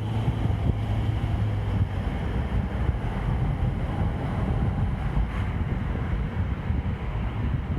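Car driving along a road: a steady low rumble of road, engine and wind noise.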